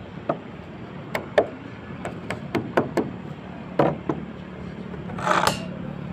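Irregular sharp knocks and taps from handling tools and fittings on a rooftop edge, about ten in all, then a short scraping rustle about five seconds in.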